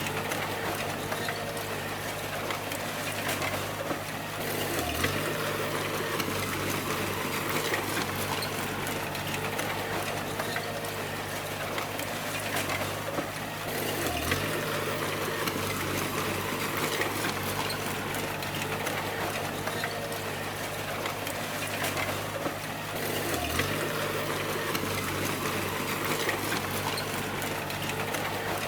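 Bulldozer's diesel engine running steadily with a continuous rattle, its pitch dipping briefly three times, about every nine seconds.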